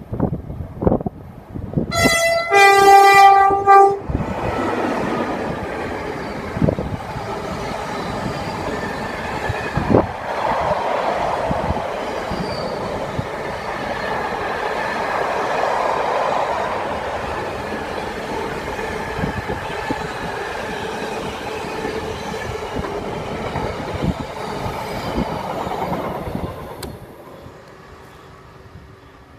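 A freight locomotive sounds its two-tone horn about two seconds in, a short high note then a longer low one. Then a long container freight train runs past, its wagons rumbling steadily with wheels clicking over the rail joints, and fades away near the end.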